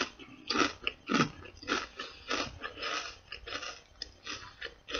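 A person chewing crunchy sea-salt cassava pops, a light, chip-like snack: a run of dry crunches, about three a second.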